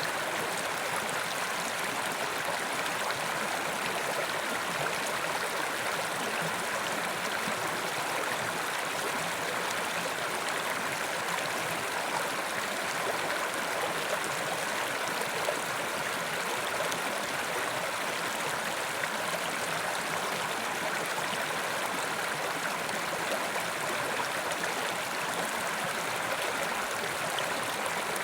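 Mountain river rushing over rocks, a steady even roar of running water.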